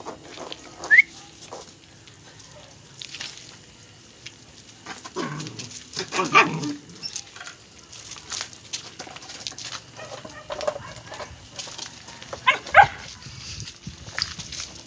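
Belgian Malinois puppies yipping, barking and whining in short bursts: a brief rising yelp about a second in, a longer run of barks and whines in the middle, and a few quick yips near the end. Scattered light clicks and knocks run between the calls.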